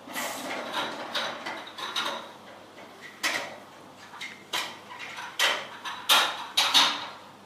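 Footsteps rustling through dry bracken and leaf litter on a forest floor, uneven, a step every half second to a second, loudest near the end.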